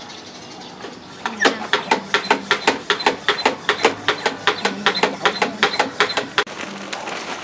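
A rapid, even series of sharp clicks or knocks, about five a second, starting about a second and a half in and stopping abruptly about a second before the end.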